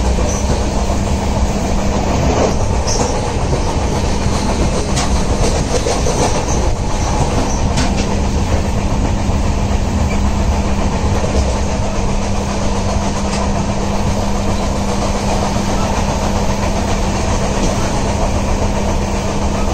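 Mandavi Express passenger train running along the track: a steady rumble of wheels on rail under a constant low hum, with a few sharp clicks and rattles in the first several seconds.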